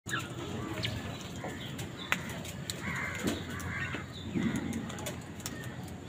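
House crows feeding from a plastic bowl: many sharp clicks of beaks pecking and tapping, with a few short bird calls in the middle.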